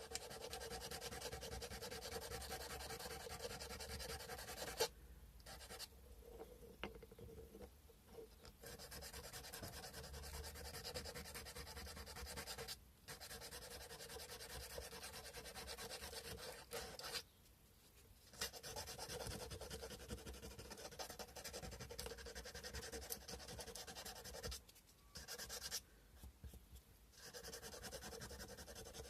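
Sandpaper rubbed by hand over a carved cow-bone fish hook in rapid, short back-and-forth strokes, stopping briefly a few times.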